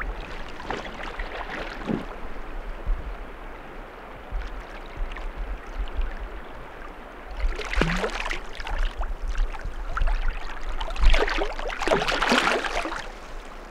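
River water running over a gravel shallow, with splashing from a hooked steelhead thrashing at the surface as it is played in, loudest about eight seconds in and again near the end.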